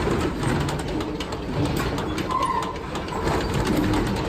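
Sawmill log-handling machinery running: a dense rattling and knocking of conveyors, with a short squeal a little over two seconds in.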